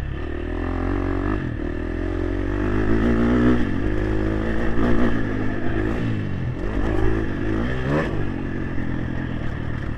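Motocross dirt bike engine revving up and down under throttle, its pitch rising and falling repeatedly, picked up close by a helmet-mounted microphone.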